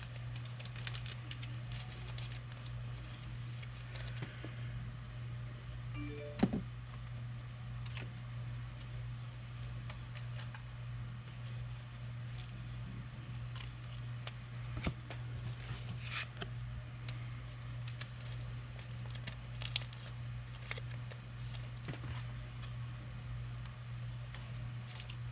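Light clicks and rustles of trading cards and packaging being handled, over a steady low hum, with one sharper click about six seconds in.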